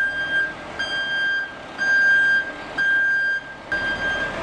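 Backup alarm of a ready-mix concrete truck beeping steadily while it reverses, about one beep a second, five beeps in all.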